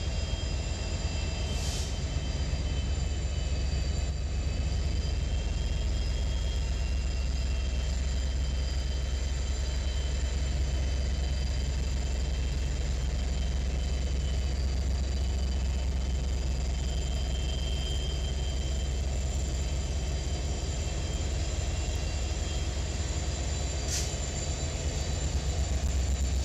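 Union Pacific diesel locomotives passing slowly close by: a steady, deep engine rumble with thin, steady high-pitched wheel squeal over it.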